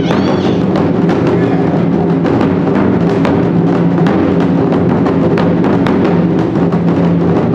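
Japanese taiko drum ensemble playing a continuous, dense rhythm: a large barrel drum on a tall stand is struck from both sides by two drummers, together with side drums and a set of small tightly tuned drums.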